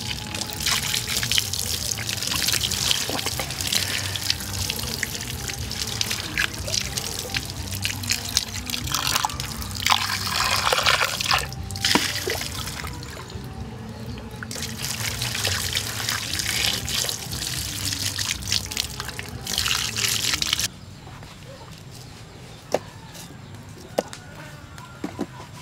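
Water pouring and splashing over a whole fish as it is rinsed by hand, a steady splashing that stops abruptly about five seconds before the end. A few light knocks follow.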